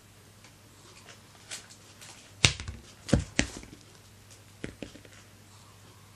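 A mandarin orange dropping off a cat's head and bumping against the wicker basket: a few sharp knocks and soft thumps, the loudest about two and a half and three seconds in, then lighter taps a little later.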